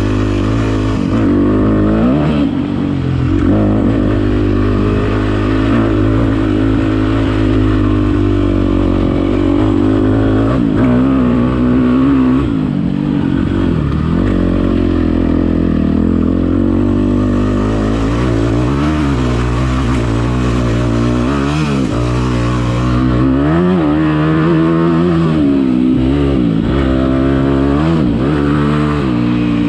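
Dirt bike engine being ridden along a trail, its pitch rising and falling over and over as the throttle is opened and closed.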